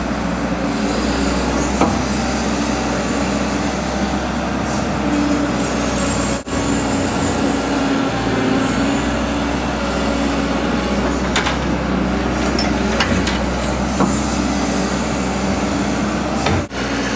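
Caterpillar tracked hydraulic excavator's diesel engine running steadily under load as it digs a trench, with a few sharp clicks and knocks from the digging. The sound breaks off briefly twice.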